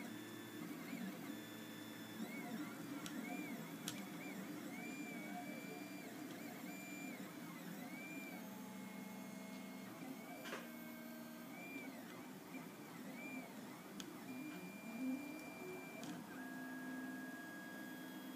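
Prusa i3 3D printer printing: its stepper motors sing in short rising and falling tones as the print head moves back and forth, over a steady hum. A few sharp ticks come through now and then.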